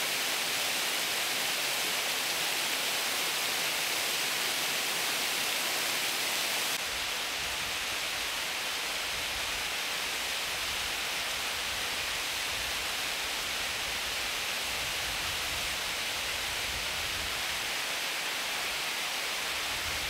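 Waterfall in full spring flow from snowmelt and heavy rain, water falling over rock ledges with a steady rushing. About seven seconds in, the sound shifts slightly lower, with a deeper rumble added.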